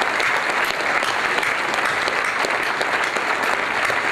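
Audience applauding steadily: a large crowd clapping in sustained applause after a tribute speech.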